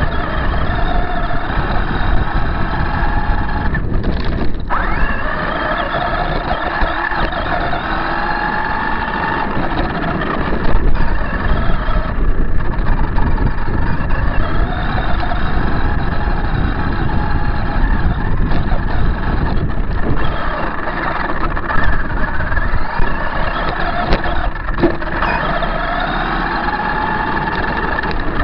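Electric RC monster truck's motor and drivetrain whining, the pitch rising and falling over and over with the throttle, over a constant rough rumble and rattle from the truck running across rough ground, picked up by a camera mounted on its roof.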